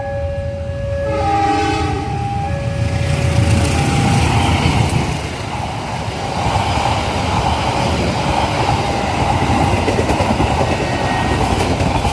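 A passing train: its horn sounds briefly about a second in, then the train runs by with a loud, steady rumble of wheels on the rails. Throughout, an alternating two-note warning tone sounds, typical of a level-crossing alarm.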